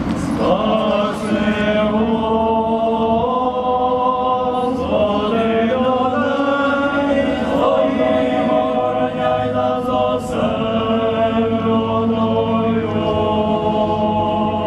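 Several voices chanting a Byzantine-rite liturgical hymn together, moving slowly from one long held chord to the next.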